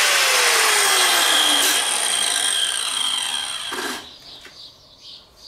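Angle grinder with a stone-cutting disc grinding the corners off a stone slab. The loud grinding stops about four seconds in.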